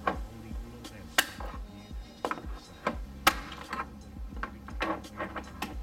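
Sharp, irregular plastic clicks and knocks as a screwdriver pries at the interior trim panel of an Acura RSX's rear hatch, the loudest about three seconds in, over background music.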